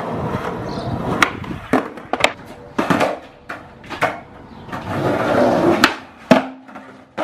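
Skateboard wheels rolling on concrete, broken by sharp wooden clacks of the board popping and slapping down, several times. Near the end a loud clack as the board hits the ground, ringing briefly.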